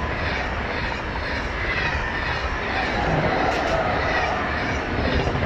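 Thalys high-speed train, a PBKA and a PBA trainset coupled together, passing close at speed: a loud, steady rush of wheels on rails and air along the carriages.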